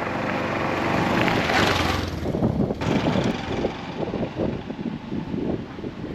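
Honda Super Cub 125's small air-cooled single-cylinder engine running, with a rushing noise over it that cuts off sharply about three seconds in.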